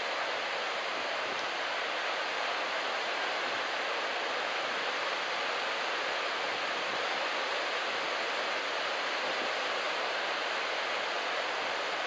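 Steady hiss of ocean surf breaking and washing onto a sandy beach, an even noise with no distinct crashes.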